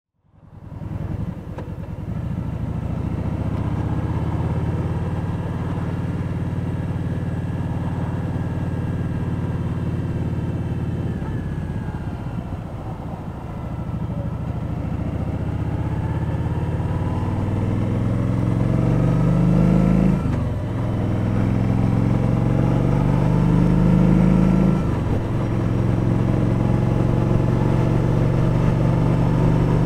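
Kawasaki Vulcan 1700 Voyager's V-twin engine running while the motorcycle is ridden. Its pitch climbs under acceleration, then drops at a gear change about twenty seconds in and again about five seconds later.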